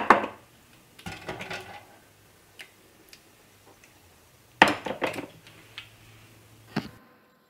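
Filled glass canning jars clinking and knocking as they are lifted from an aluminium pressure canner with a metal jar lifter and set down on a tiled counter. There is a sharp knock at the start, a cluster of clinks about a second in, a louder clatter a little after halfway and a last click near the end.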